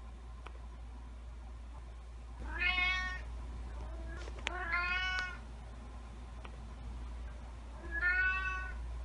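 Domestic cat meowing three times, each call under a second long, the second one drawn out. The cat is asking for a snack in the night.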